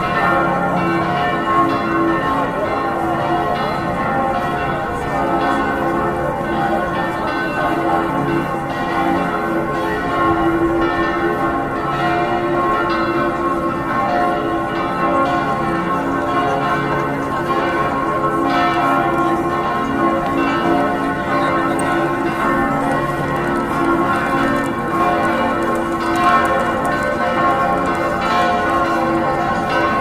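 Church bells ringing in a continuous peal, many bell tones overlapping and sounding on without a pause.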